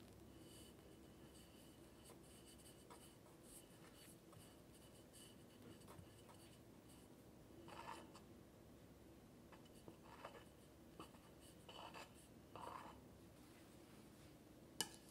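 Faint scraping of a metal palette knife spreading and smoothing whipped cream over a cake, in a few soft strokes through the second half. Near the end there is one sharp click as the blade meets the marble cake turntable.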